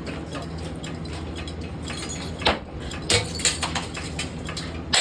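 Harbor Breeze Barnstaple Bay ceiling fan running with a steady low hum. A sharp knock comes about two and a half seconds in, and a quick run of light clinks and clatters follows a second later.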